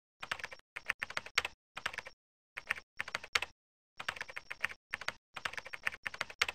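Computer keyboard typing sound effect: about ten short runs of quick keystrokes separated by dead-silent gaps.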